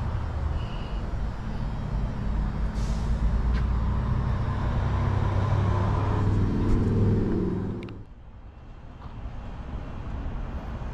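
Motor vehicle engine running, growing louder over several seconds, then dropping off sharply about eight seconds in.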